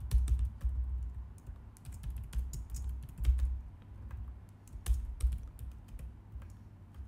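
Typing on a computer keyboard: quick, irregular keystrokes, some landing with dull thumps. The typing thins out near the end.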